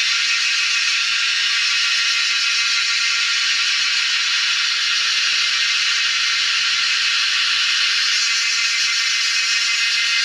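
A steady, loud high-pitched hiss with no low end, unchanging throughout.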